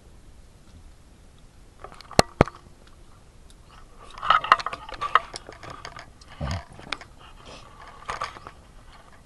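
People chewing and crunching wild chicken and bird meat, in crackly bouts through the second half. Two sharp clicks about two seconds in are the loudest sounds.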